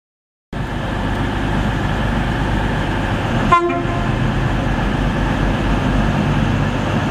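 Class 43 HST power car diesel engines running under the station roof, with one brief horn toot about three and a half seconds in as the train gets ready to depart.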